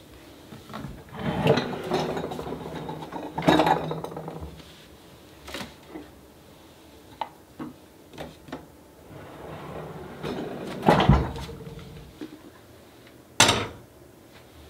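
A kitchen drawer sliding, and lidded earthenware pots (ttukbaegi) knocking and clinking as they are handled. Near the end comes one sharp clunk as a clay pot is set on a gas stove's grate.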